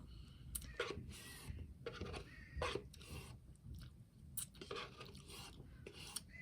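Close-up mouth sounds of a person eating ice cream: irregular soft chewing and smacking with scattered short clicks.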